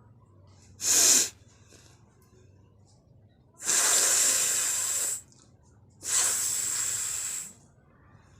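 A person forcefully blowing air out through the nose: one short sharp blast about a second in, then two long steady nose blows of about a second and a half each.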